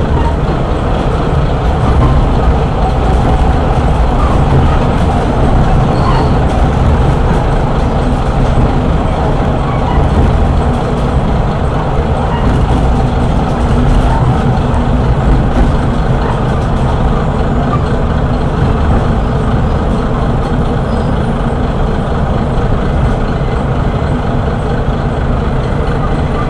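Kashima Rinkai Railway 6000-series diesel railcar running along the line, heard inside the carriage: its vertical diesel engine running steadily together with the wheels' running noise on the rails.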